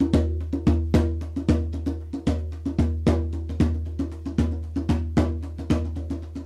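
Background music: the percussive opening of an Irish reel, a drum struck in a steady beat over a low, unchanging drone.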